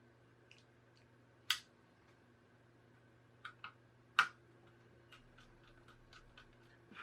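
Sharp clicks and taps of a small metal part and tools being handled on a laptop's internals as the heat pipe is refitted: a few separate knocks, the loudest about four seconds in, then a quick run of light ticks near the end.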